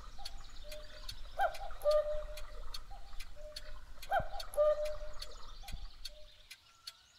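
Black Forest cuckoo clock ticking about three times a second while its cuckoo calls, a falling two-note "cuck-oo", about every three seconds, fading out near the end.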